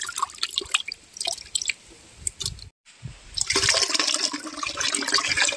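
Water splashing and trickling as the soaking water is poured off soaked urad dal from a steel dish into a steel pot, draining away the loosened husks. The sound drops out briefly just before three seconds in, then a steadier pour resumes.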